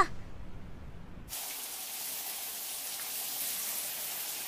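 Shower running: a steady hiss of water spraying from a shower head, starting abruptly about a second in.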